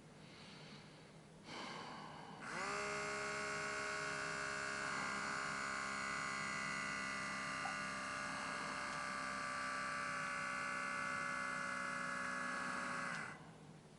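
The small electric air pump of a Nissei DS500 automatic blood pressure monitor inflating the arm cuff: it starts about two and a half seconds in, hums steadily for about ten seconds and cuts off near the end as the cuff reaches pressure. The repaired monitor is working again.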